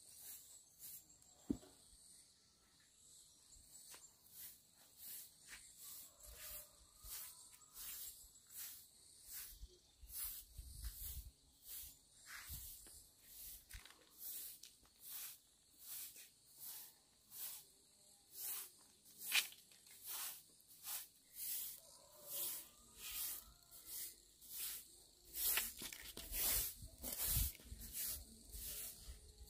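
Rhythmic scraping strokes of a hand tool, about two a second, growing louder near the end, with a single sharp click about a second and a half in.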